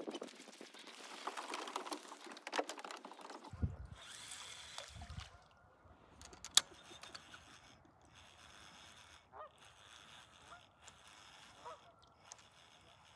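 Rustling handling noise with two low thumps in the first five seconds, a single sharp click about six and a half seconds in, then a few short, faint honking calls of waterfowl.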